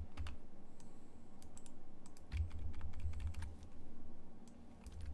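Typing on a computer keyboard: irregular key clicks, with a cluster of low dull thuds a little past the middle.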